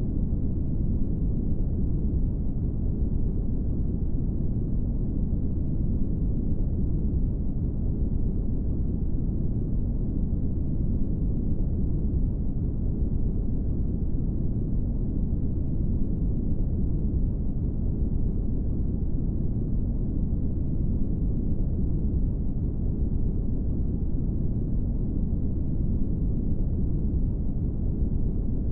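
Brown noise: a steady, deep, even rush with its weight in the lows and no highs, unchanging in level.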